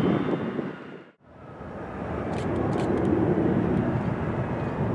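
Twin turboprop engines of a Piaggio P.180 Avanti running at run-up power, cut off sharply about a second in. Then the single turboprop engine of a Pilatus PC-12/47 fades up and runs steadily.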